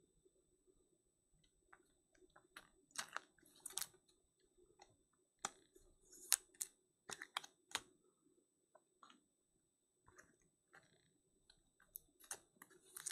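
Irregular light clicks and plastic taps as trading cards are slid into rigid plastic toploaders and stacked on a table.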